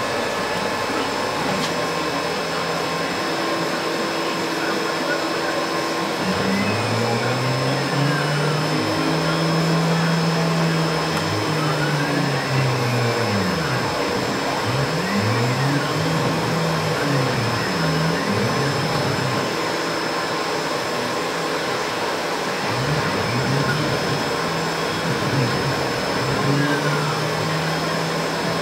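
8x4 CNC router cutting plastic sheet: a steady rushing machine noise with a constant high whine, while the axis drive motors hum in pitches that rise and fall over and over as the gantry speeds up and slows down through its moves.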